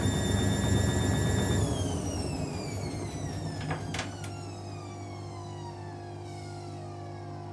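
Hotpoint WM63 washing machine's motor whining at a steady speed, then winding down with a falling whine from about a second and a half in, with two short clicks around four seconds. A lower steady hum carries on once the whine has faded. The drum is heavily oversudsed, the condition that trips the machine's sudslock and cuts the spin.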